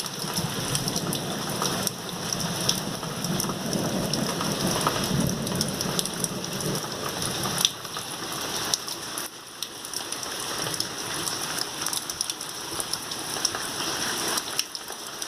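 Heavy rain pouring down, many drops pattering on a hard surface. A low rumble runs under it for the first half and cuts off about eight seconds in.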